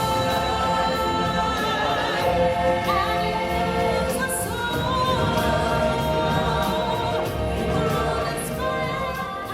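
Music with a choir of voices singing held, overlapping notes, beginning to fade near the end.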